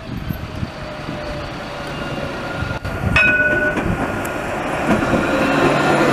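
Modern low-floor electric tram approaching and passing close by, its wheels rolling on the rails, growing louder as it draws level about three seconds in. A brief ringing tone sounds as it gets loud.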